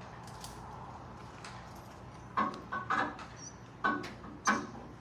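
Ratchet strap hardware knocking and clinking against a pickup's metal rack while a vending machine is strapped down: about five short knocks in the second half.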